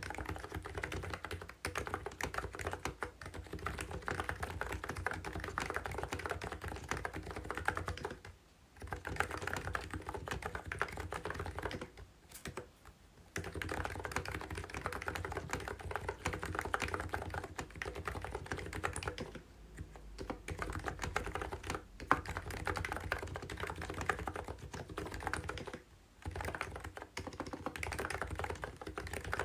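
Fast typing on a COX CNK84W electrostatic-capacitive mini keyboard: a dense run of key presses broken by short pauses four times.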